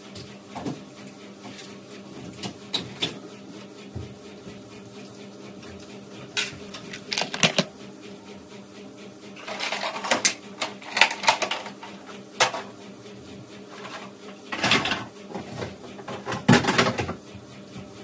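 Plastic toys clattering and knocking together as they are picked up and set down, in scattered bursts of clicks over a faint steady hum.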